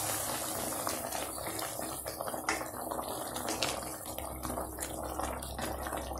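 Wooden spatula stirring thick, bubbling pumpkin-and-jaggery halwa in ghee in a metal kadai, with many small irregular ticks and scrapes against the pan over a wet bubbling hiss.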